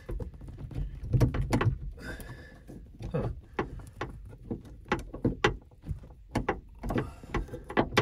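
Irregular small plastic clicks and knocks from fingers working at the wiring plug on a VW Passat B8 tailgate lock actuator, trying to unclip it. The plug is held by a latch on each side and won't pull free.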